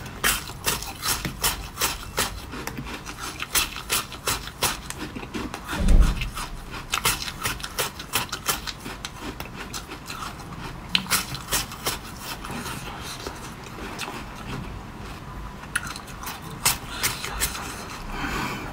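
Close-up crunching of a thin sheet of flavoured ice shaped like a face mask being bitten and chewed: rapid sharp crackles and snaps, with a dull heavy thump about six seconds in.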